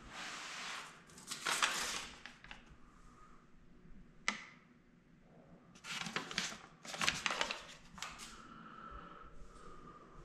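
A sheet of old, stiff paper being picked up and handled, rustling and crinkling in several bursts, with one sharp click about four seconds in.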